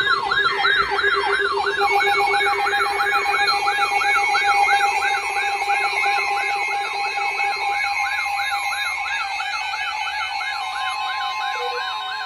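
Electronic alert siren yelping rapidly, about three rising-and-falling sweeps a second. It runs over steady alarm tones, sounded ahead of a tornado warning broadcast.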